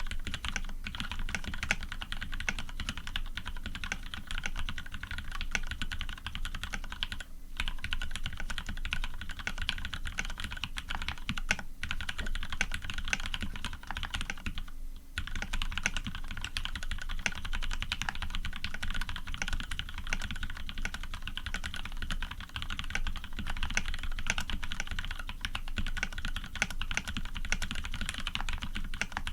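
Fast, continuous typing on a custom Orion v2.5 mechanical keyboard with Krytox 105-lubed Cherry Retooled Black linear switches, an aluminium plate and PBT keycaps. There are a few brief pauses, the longest about halfway through.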